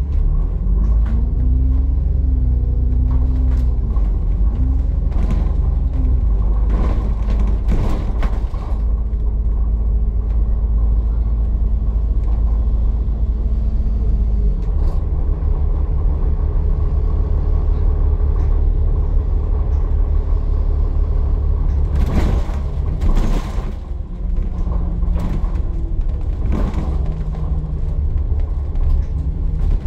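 ADL Enviro400 MMC double-decker bus on the move, heard from on board: a steady low engine and drivetrain rumble whose pitch rises and falls as it speeds up and slows. A few short sharp noises come through it, the most prominent a little over twenty seconds in.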